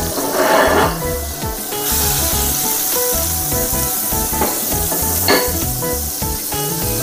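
Butter sizzling as it melts and foams in a hot frying pan, the hiss growing louder about two seconds in. Background music with a steady beat plays underneath, and there is a short knock about five seconds in.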